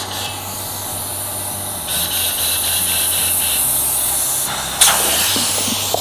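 Compressed air hissing through a lock-on air chuck into a small tubeless lawnmower tire, inflating it to seat the bead on the rim. The hiss grows stronger about two seconds in, and there is a sharp pop near the five-second mark.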